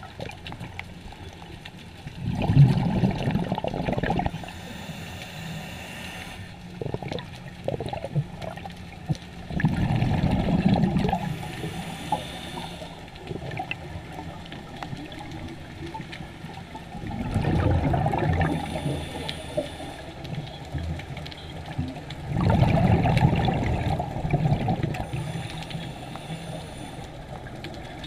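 Scuba diver's regulator breathing heard underwater: a bubbling, gurgling rush of exhaled air about every seven seconds, each lasting a couple of seconds, with quieter water noise between breaths.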